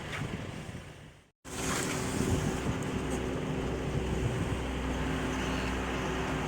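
A vehicle's engine running steadily with a constant low hum, under wind and travel noise. The sound cuts out for a moment about a second in, then the same kind of steady running resumes.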